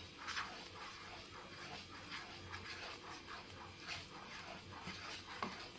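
Wooden spatula stirring and scraping a thick, thickening gram-flour and sugar-syrup mixture in a non-stick kadai, faint rhythmic strokes about two or three a second.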